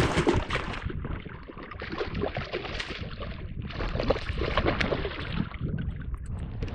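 Water splashing and sloshing as a hooked northern pike thrashes at the surface beside the boat while being reeled in on a baitcasting reel.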